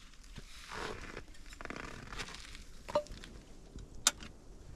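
Rustling of clothing and crunching of packed snow as someone kneels and moves, then two sharp knocks about three and four seconds in, the first with a short metallic ring, as a metal mug and kettle are handled and set down.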